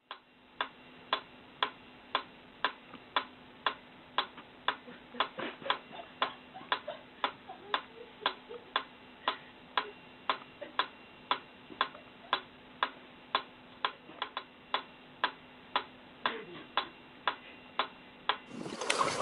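Mechanical pendulum metronome ticking steadily, about two ticks a second.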